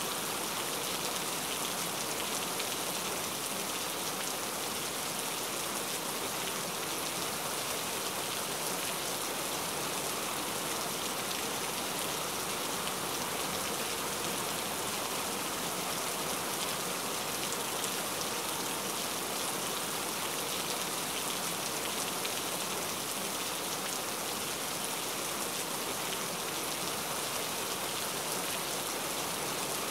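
Steady rain, used as a background ambience track: an even hiss of falling rain that holds the same strength throughout.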